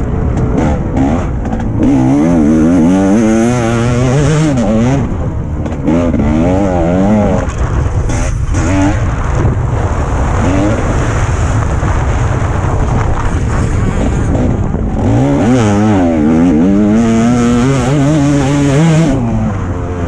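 TM 300 two-stroke motocross bike ridden hard, its engine revving up and down over and over as the throttle is opened and shut, with brief drops around five and fifteen seconds in.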